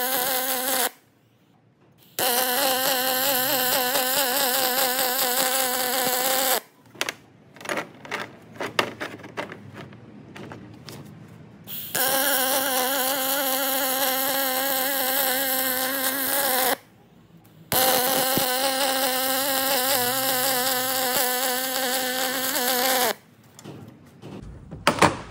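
MIG welder arc running on aluminium tubing: a steady, wavering buzz in runs of four or five seconds each, broken by short pauses. A stretch of scattered crackles and short arc starts comes about seven to twelve seconds in, and there are a few clicks near the end.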